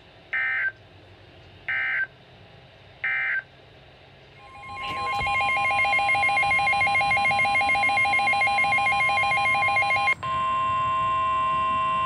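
Weather radio sounding an emergency alert: three short data-tone blips about a second and a half apart, the end-of-message signal of the previous warning, then, about four seconds in, a loud steady alarm tone with a fast flutter that shifts in sound about ten seconds in, the NOAA Weather Radio 1050 Hz warning alarm announcing a new severe thunderstorm warning.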